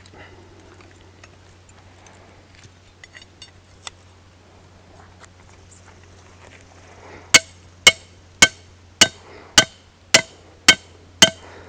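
Hammer driving a steel trap stake into the ground: eight ringing metal-on-metal blows, about two a second, starting a little past halfway. Before them, faint metallic clinks and rustles.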